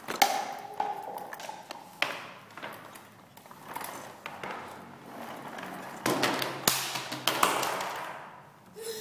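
A few sharp taps and knocks. About six seconds in comes a stretch of louder rustling and scraping, broken by two more knocks.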